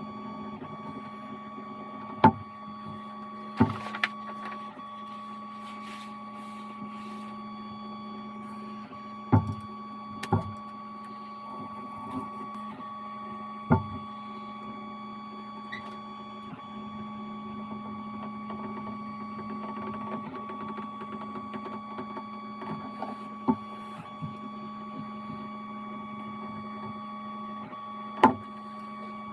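A steady machine hum with several fixed tones, broken about eight times by sharp knocks and taps of tools and leather handled on a workbench.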